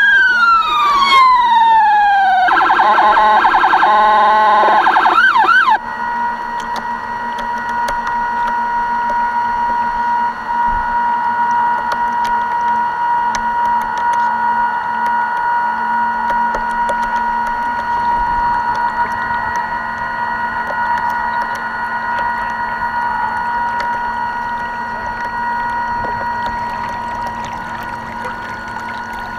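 Electronic siren of a radio-controlled model boat: a wail falling in pitch, switching to a fast yelp about two and a half seconds in, then cutting off suddenly. A quieter steady high whine carries on after it.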